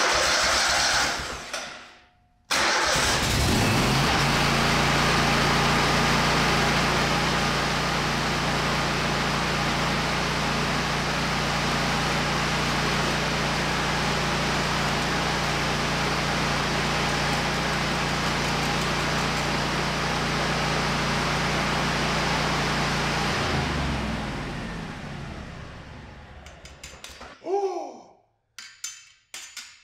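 Gasoline engine of a Lincoln Electric Ranger 250 engine-driven welder cranking, catching about two and a half seconds in and running at a steady speed for about twenty seconds. It is then shut off and spins down to a stop.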